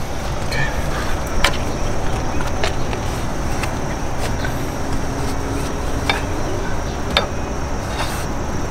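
Scattered light clicks and knocks of hands handling plastic crankcase-vent hoses and their fittings in a car's engine bay, over a steady low rumble.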